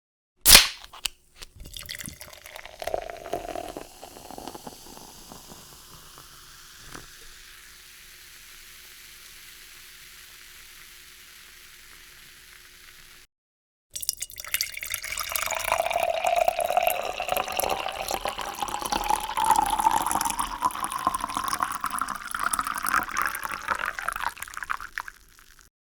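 Soda can's tab cracked open with one sharp pop, then the carbonation fizzing and hissing, slowly fading. After a short break, the carbonated soda is poured out, a bubbling pour that rises steadily in pitch.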